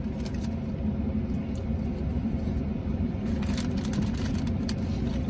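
Steady low rumble of a vehicle idling, heard inside the cab, with a few faint crinkles of a paper napkin being handled.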